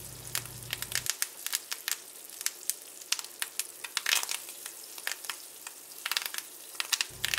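Fresh rue sprigs frying in hot melted butter in a frying pan as they are swirled around: a faint sizzle broken by many irregular sharp crackling pops as water in the fresh herbs spatters.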